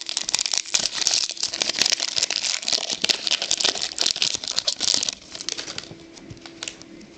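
Foil trading-card pack wrappers crinkling loudly, with cards rustling and clicking as they are handled; the crinkling drops away about five seconds in, leaving quieter clicks and rustling of cards.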